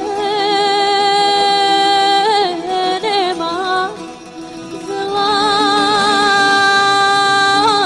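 Background music in a Middle Eastern folk style: long held notes that waver with vibrato, one in the first couple of seconds and another from about five seconds in, joined by short ornamented turns.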